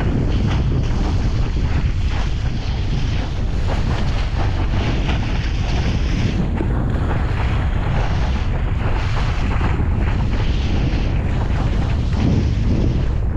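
Strong wind buffeting the camera microphone, mixed with water rushing and spraying past a Mistral IMCO One Design windsurf board moving fast through chop. The noise is steady and heaviest in the low rumble.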